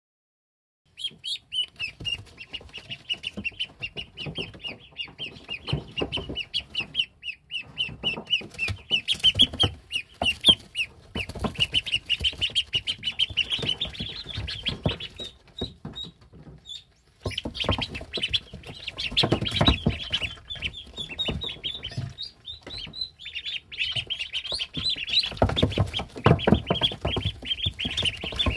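Ducklings peeping in a fast, continuous string of short high calls, starting about a second in and pausing briefly past the halfway mark. Underneath are soft tapping and rustling sounds as they move on the brooder pad.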